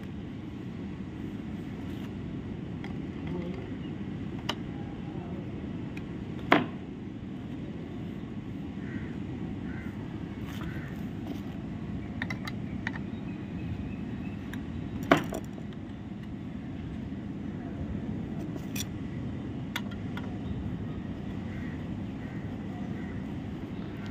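Hand work on an aluminium window profile and its plastic interlock piece: a few sharp clicks and knocks of metal and plastic parts, two of them louder, over a steady low background hum while a screw is driven in with a screwdriver.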